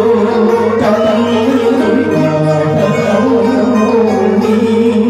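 A man singing a Vietnamese song into a microphone with a wavering vibrato, over a live electronic keyboard accompaniment of sustained chords.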